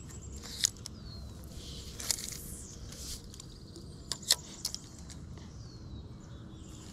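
Spinning rod and reel being handled during a cast and retrieve of a jig: a few sharp clicks, with several close together about four seconds in. Two faint, short, falling bird chirps sound in the background.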